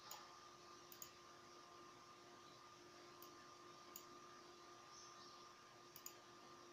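Near silence with a faint steady hum and a handful of small sharp clicks, some in quick pairs, from the small wires and plastic PIR sensor module being handled against the soldering iron.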